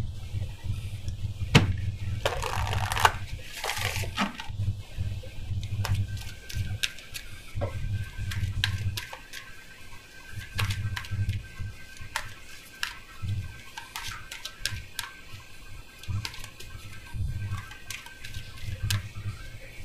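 Tarot cards being handled and dealt from a deck onto a table: a long run of light card clicks and snaps, with soft low thuds of handling in between.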